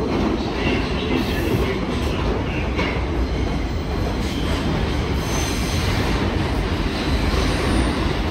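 Bombardier R62A subway train running: a steady rumble of steel wheels on rail, with faint high wheel squeals coming and going, mostly in the second half.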